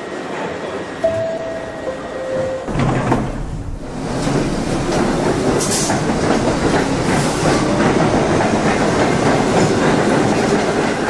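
Subway train departing: two steady tones, the second lower, then the train pulls away and runs loud and steady with rail clatter.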